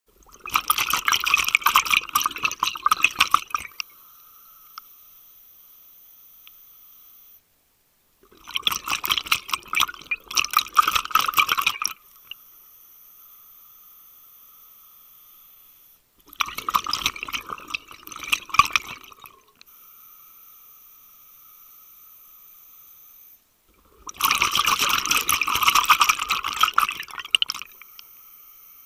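Scuba diver's exhaled bubbles gushing from the regulator, heard underwater, in four bursts of three to four seconds each about eight seconds apart. A faint steady whine fills the gaps between breaths.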